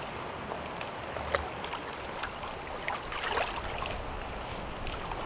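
Water splashing and gurgling as a metal pot is dipped into a river to fill it, with a steady rush of wind and moving water behind.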